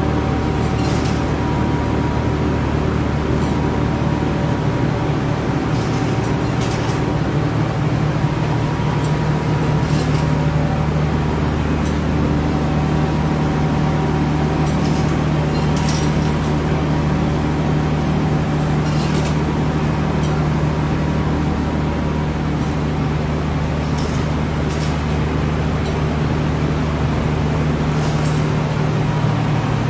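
Sago-pearl processing machinery running: a steady low hum and drone, with occasional faint clicks and rattles.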